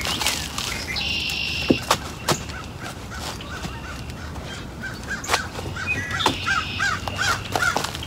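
Two harsh bird calls, about a second in and again near the end, and a run of short repeated bird calls in the second half. Dry sticks crack and snap as branches are handled, loudest a little under two seconds in.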